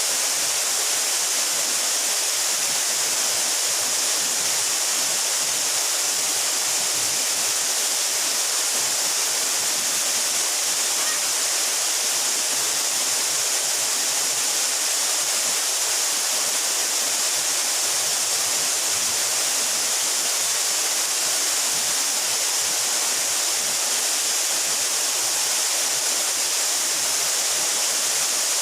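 Waterfall about 12 metres high, water falling and splashing in a steady, unbroken rush with a strong hiss.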